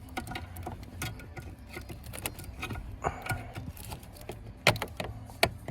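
Scattered light clicks and taps of hand work on plastic dashboard trim, clips and screws, with two sharper knocks a little before the end.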